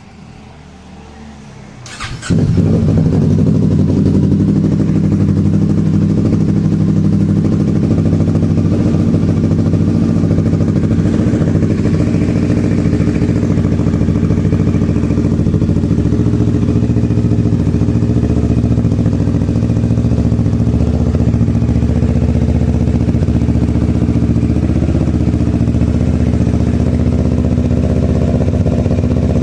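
Kawasaki Ninja 650's parallel-twin engine through a Yoshimura Alpha exhaust, starting up about two seconds in and then idling steadily.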